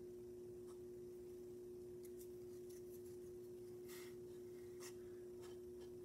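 Quiet room tone with a steady low hum, and a few faint clicks and light scrapes as small mosaic tiles are handled and pressed into glue on a wooden birdhouse.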